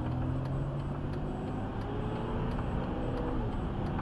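Car driving at highway speed, heard from inside the cabin: a steady drone of engine and tyre noise, with a faint engine tone rising slowly through the middle.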